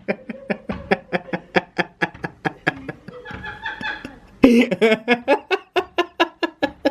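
Laughter: a long run of quick, evenly spaced ha-ha bursts, about four or five a second, with a louder burst about four and a half seconds in.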